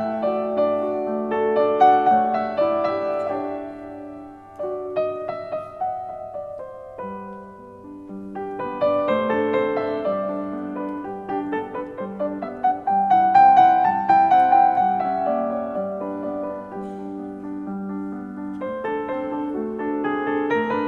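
Background piano music, with a quieter passage about a third of the way through before it fills out again.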